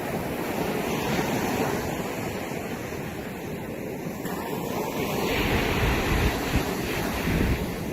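Ocean waves washing in, a steady rush of surf with wind on the microphone; a deeper rumble swells up in the last few seconds.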